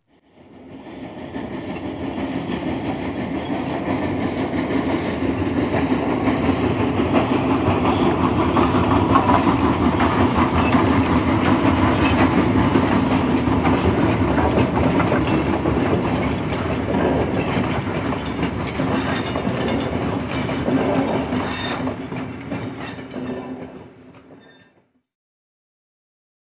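A train running on rails, building up over the first few seconds, loudest around the middle, with a run of sharp clicks late on, then fading out to silence a couple of seconds before the end.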